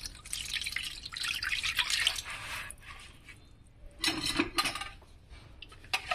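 Thick yogurt-and-egg sauce pouring from a plastic bowl into a metal baking pan, splashing and slopping for a few seconds. A second, shorter splash comes about four seconds in.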